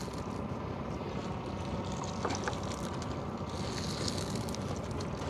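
Small boat's engine running steadily, with a couple of light knocks about two seconds in.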